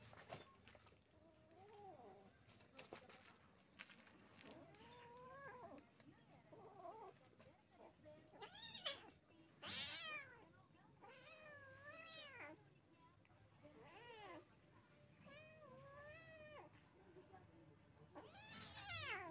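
Cats wrestling, with one of them mewing about ten times in short cries that rise and fall in pitch. The loudest and highest cry, near the end, slides sharply down. There are a few faint scuffling rustles between the calls.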